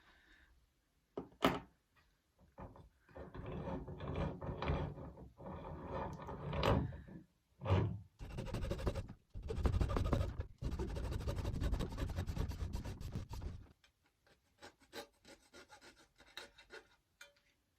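A plastic steerer bung being cut down by hand: a start-stop run of rough, rasping cutting strokes lasting about ten seconds, stopping abruptly. Light clicks and taps follow as the pieces are handled.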